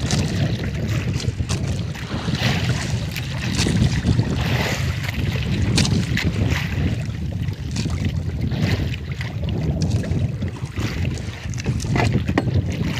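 Wind buffeting the microphone and water washing against the hull of a small wooden outrigger boat at sea, a steady low rumble, with scattered light knocks and clicks as the longline is hauled in over the side.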